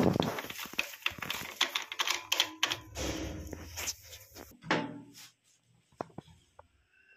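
Plastic toilet seat and its fixing bolt being worked by hand under the bowl rim: a quick run of small plastic clicks and rattles for the first four seconds or so, then a few scattered knocks as the seat and lid are handled.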